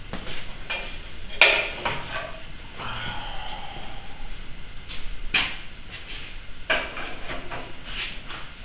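Loose steel plates clanking and rattling on a steel shop table as the table is pushed on casters and the plates are shifted by hand. There are a few sharp metal clanks, the loudest about one and a half seconds in, and a short scrape around three seconds in.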